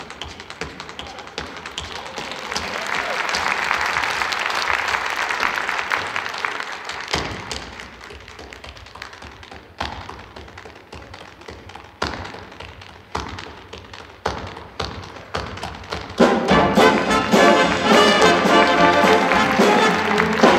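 Tap shoes on a stage floor in a solo tap break: a fast, dense run of taps at first, then sparser, sharp single stamps spaced a second or so apart. About sixteen seconds in, the big band's brass comes back in loudly over the dancing.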